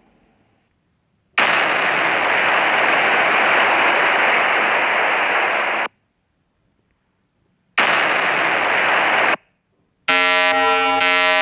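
Sound-effect playback: two bursts of loud, even hiss, the first about four seconds long and the second about a second and a half, each cutting off abruptly. Near the end a pulsing, buzzing alarm tone with many overtones begins.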